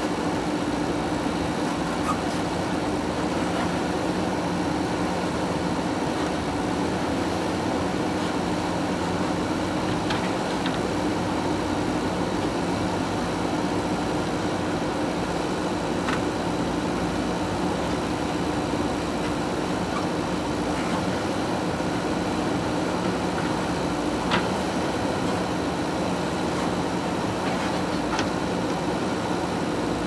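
JCB backhoe loader's diesel engine running at a steady speed, with a few faint knocks scattered through.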